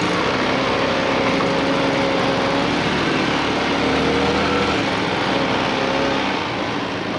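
ATV (quad bike) engine running steadily under way on a dirt track, its pitch rising and falling a little with the throttle, over a steady rushing noise.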